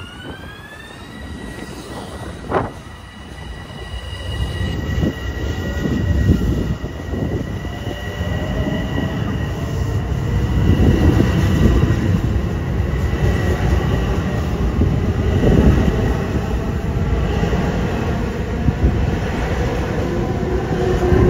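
Passenger train running past on the rails, with a high whine that rises in pitch in the first second and then holds steady. Beneath it a rumble and wheel clatter builds from about four seconds in and stays loud to the end.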